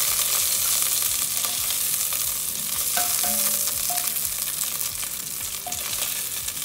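Sausage meat frying in hot olive oil in an enamelled cast-iron casserole, sizzling steadily and a little quieter toward the end, while a wooden spoon scrapes and knocks against the pot to scoop the crispy pieces out.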